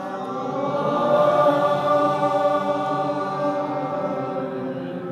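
Congregation reciting the salawat, blessings on the Prophet Muhammad, together in one drawn-out chant of many voices. It swells about a second in and then slowly fades.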